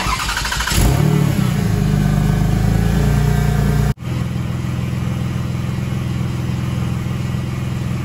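2003 Toyota Highlander's V6 engine starting up and running at a fast idle. The sound cuts off abruptly about four seconds in, then the engine idles steadily.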